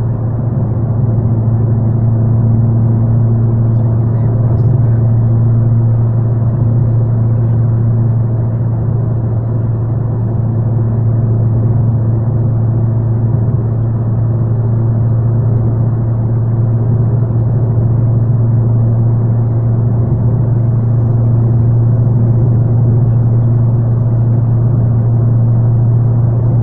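Steady low drone of a car cruising at highway speed, heard from inside the cabin: engine hum mixed with tyre and road noise, with no change in pace.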